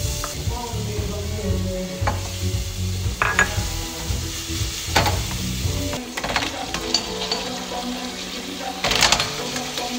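Minced garlic and chili flakes sizzling in olive oil in a copper pan while a wooden spoon stirs, with a few sharp knocks against the pan, the loudest near the end.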